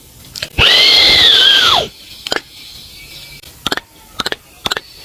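Beatboxed foley: a mouth-made whirring whine like a small power tool, running steadily for just over a second and dropping in pitch as it stops, then a string of short sharp clicks.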